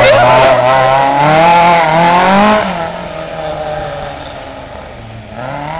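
Small rally hatchback engine revving hard through a slalom, its pitch rising and falling, with tyres squealing. About two and a half seconds in it drops away to a fainter, distant engine note as the car pulls off to the far end of the course.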